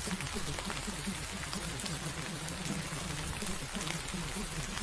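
Recorded rain playing steadily, with scattered drop ticks, over a low, muffled murmur of voice: a rain bed with subliminal affirmations mixed far beneath it.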